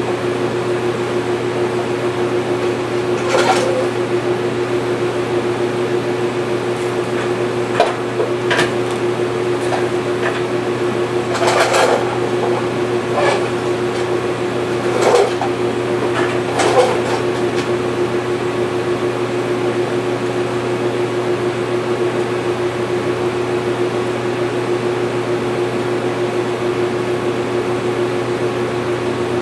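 Electric welder striking short arcs on a steel snow blower pulley holder: about seven brief crackling bursts of tack welds in the first half, over a steady machine hum that runs throughout.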